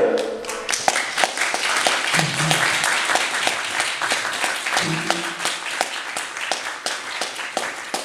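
Audience applauding, dense clapping, with two short bursts of voice about two and five seconds in.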